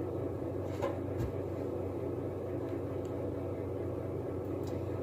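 Steady low background hum with a few faint clicks, one a little under a second in, one just after, and one near the end.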